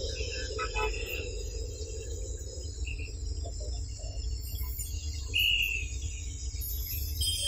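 Steady outdoor background noise: a low rumble under an even high hiss, with a few short faint chirps, one louder about five and a half seconds in.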